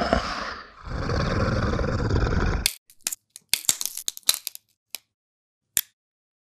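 A rough, growling snarl that cuts off suddenly under three seconds in. A rapid scatter of sharp clicks and cracks follows, then two lone clicks.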